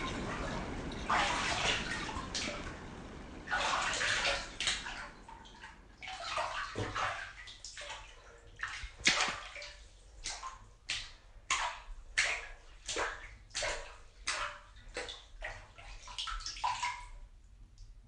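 Water sloshing and splashing, then a steady run of short drips or plops, about two a second, that stops just before the end.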